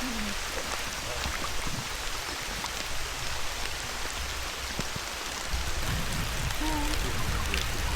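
Steady rushing hiss of water around a bamboo raft, with a low rumble joining about five and a half seconds in.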